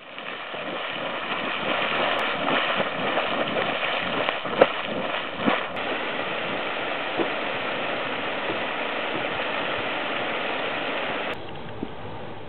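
Geyser erupting: a steady rush of water and steam, with a couple of sharp pops near the middle. It turns quieter about a second before the end.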